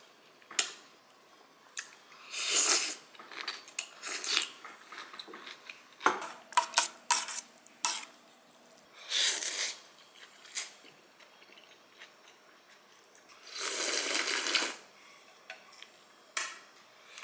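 Metal chopsticks clinking and scraping against a stainless steel bowl of cold noodles, with several slurps of noodles in between, the longest near the end.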